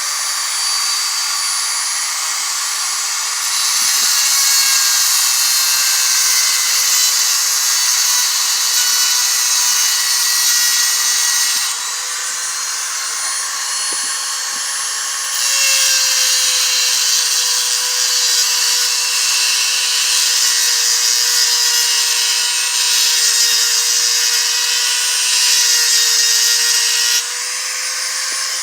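Motor-driven stone grinding wheel running steadily, with two long stretches of loud hissing grinding as steel is pressed against the stone: one from about four to twelve seconds in, another from about fifteen seconds to near the end.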